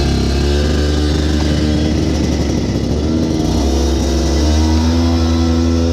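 23 hp go-kart engine running at steady low revs, its note shifting slightly about three and again about four and a half seconds in.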